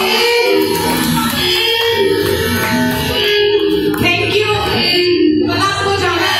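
Dance music with singing, played loudly over loudspeakers.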